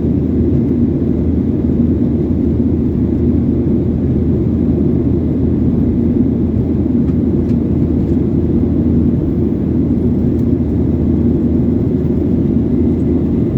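Airliner cabin noise: a steady low drone of jet engines and rushing air, with a faint hum held at one pitch.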